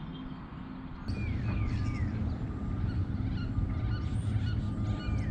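Wood ducks calling, with several short squealing calls that slide down in pitch starting about a second in, then scattered smaller chirps, over a steady low rumble.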